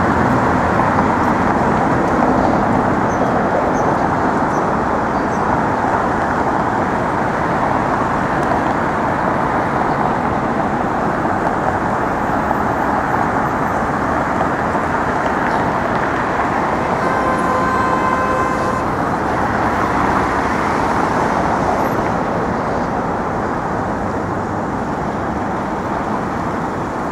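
Steady city street traffic noise: cars and other vehicles running past. A held horn-like tone sounds for about two seconds past the middle.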